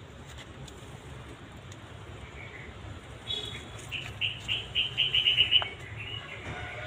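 A bird calling: about three seconds in, a run of short, high chirps that come faster and louder for a couple of seconds, then stop. A faint low rumble underlies it.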